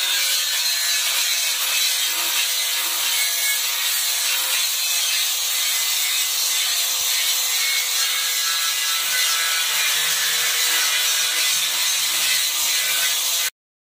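Electric angle grinder with a sanding pad running steadily against a plastic scooter body panel: a constant motor whine under the scraping of the disc as the old matte black paint is sanded off. It cuts off suddenly near the end.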